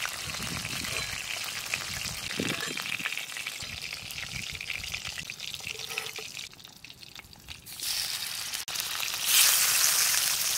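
Hilsa fish sizzling in hot mustard oil in an iron kadai as the fried steaks are lifted out with a metal spatula. The sizzle dips briefly past the middle and is loudest near the end, with a hilsa head frying in the oil.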